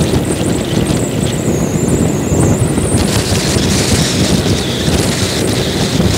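Loud, steady rumble of a vehicle driving at speed, with wind buffeting the outside-mounted microphone. A thin high whine runs over it and fades out about two and a half seconds in, after which the hiss grows stronger.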